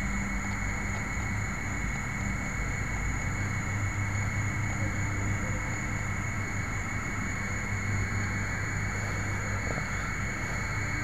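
Steady muffled hiss with a low hum and a faint high steady whine, picked up by an FPV video transmitter's microphone buried inside a foam plane's fuselage while the plane is carried.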